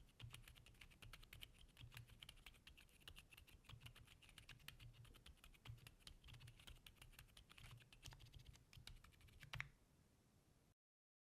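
Fast, quiet typing on a Neo80 custom mechanical keyboard built with Akko Fairy switches and GMK Redline keycaps, a steady stream of soft keystrokes. One louder stroke lands just before the typing stops near the end.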